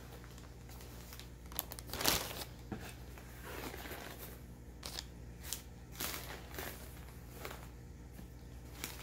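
Shredded-paper packing fill and a plastic bag rustling and crinkling as hands dig through a shipping box, in irregular scrunches, loudest about two seconds in.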